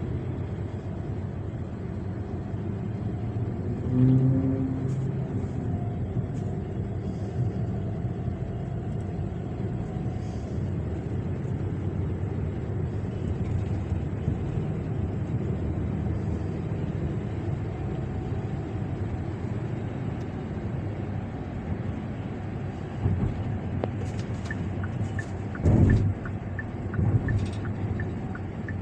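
Steady low rumble of a car driving on the road. A brief louder pitched sound comes about four seconds in, and short louder swells come near the end.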